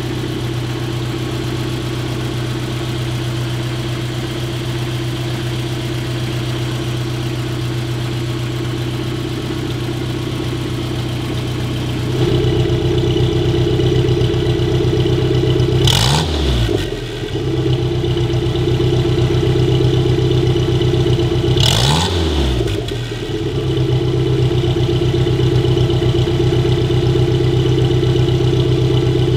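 1962 Amphicar 770's rear-mounted British four-cylinder engine idling steadily, just started. It gets louder about twelve seconds in and is revved briefly twice, about six seconds apart.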